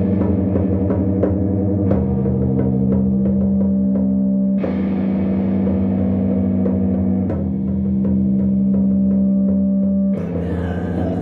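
Music: held chords changing about every two and a half seconds over a low bass, with a light, regular tick keeping time.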